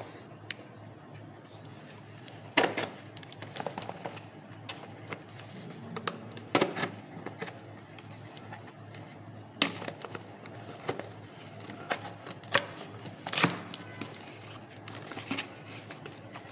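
Packaging being handled and opened by hand: scattered sharp clicks and short rustles, several seconds apart, over a steady low hum.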